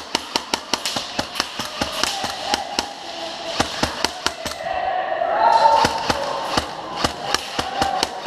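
Airsoft guns firing a rapid, irregular string of sharp single shots, several a second, with a background hubbub.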